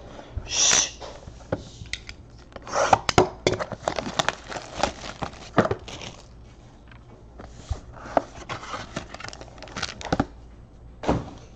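Cardboard 2018 Topps Tier One trading-card boxes being handled: a short rush of noise as a box is slid out of the stack, then scattered clicks, taps and rustles as it is set down and opened.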